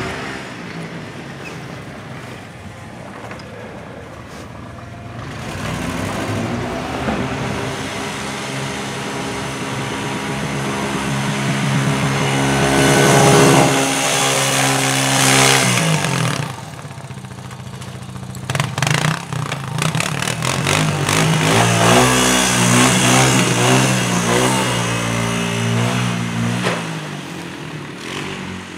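Snow-plow vehicle engines running and revving as they push snow: a pickup truck plow and a plow-equipped ATV, the engine pitch rising and falling with the pushes. The loudest stretch comes about halfway through, with the ATV working close by, followed by a sudden drop and then a short run of scraping clicks over a steady engine.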